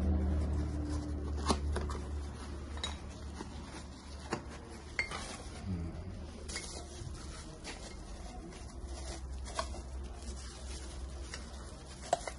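A stainless steel cocktail shaker cup and its packaging being handled, with scattered light metal clinks and knocks. A low hum fades out over the first few seconds.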